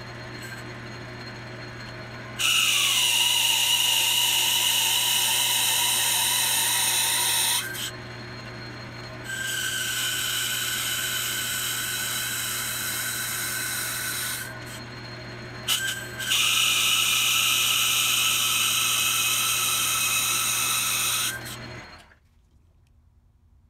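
Logan 10-inch metal lathe cutting grooves in a spinning brass part: three loud, high-pitched cutting passes of about five seconds each over the steady hum of the running lathe. The sound drops away to near silence near the end.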